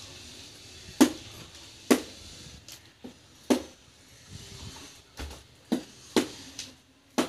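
A series of about ten sharp knocks at uneven intervals, some followed by a brief low ring.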